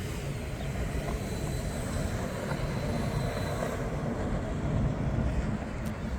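Steady low rumble of outdoor city noise, with a fainter hiss above it.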